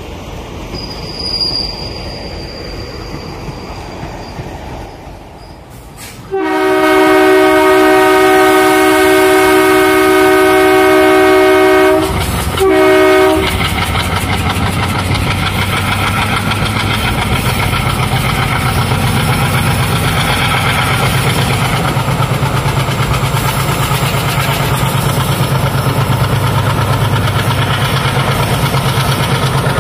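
Passenger coaches rushing past with wind noise. Then a diesel locomotive's multi-tone horn sounds one long blast of about six seconds and a short toot. After that comes the steady throb of a WDP3A locomotive's ALCo diesel engine running at speed, with the wheels clattering on the rails.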